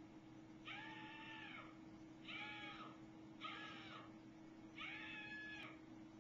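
An animal calling faintly four times, each call lasting about half a second to a second and rising then falling in pitch, over a steady low hum.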